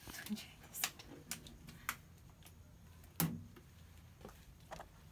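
Scattered light clicks and taps from handling a plexiglass sheet and window tint film, with one louder knock about three seconds in.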